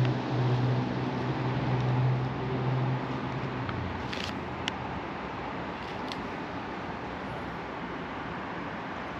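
A steady low motor hum that stops about three and a half seconds in, over a constant rushing background noise, with a few faint clicks after it.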